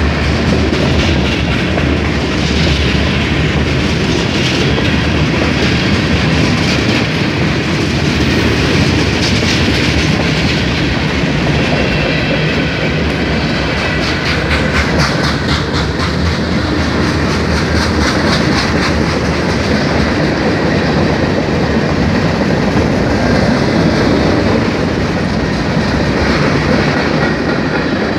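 Mixed freight train's boxcars and gondolas rolling past close by: a steady, loud rumble of steel wheels on rail, with repeated clickety-clack over the rail joints.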